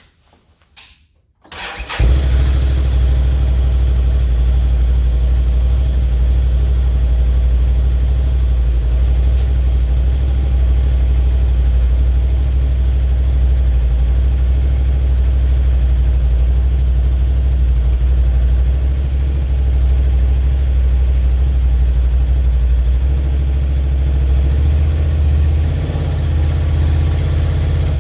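A Can-Am Outlander ATV engine is started and catches about two seconds in, then idles steadily, its note shifting briefly near the end.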